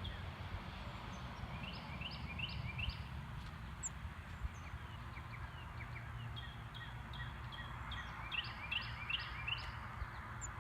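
Songbirds singing over steady low background noise: three phrases of short, high whistled notes, each of about four or five notes, one a little after the start, one past the middle and one near the end.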